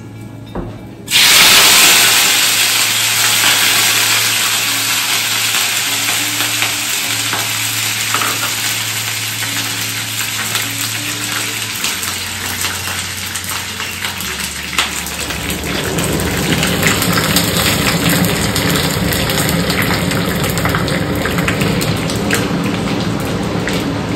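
Chopped green chillies hitting hot ghee in a wok: a sudden loud sizzle about a second in, which goes on as a steady frying sizzle while they are turned with a wooden spatula.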